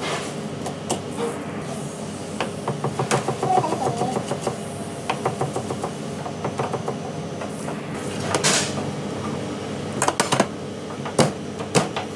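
Chef's knife chopping celery on a plastic cutting board, in quick runs of sharp taps, over a steady low hum. There is a brief scrape about eight seconds in.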